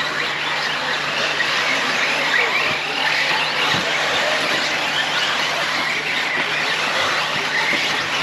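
A pack of brushless electric radio-controlled off-road cars racing together: many high motor whines overlapping with tyre noise from the track, a steady, dense sound with no single car standing out.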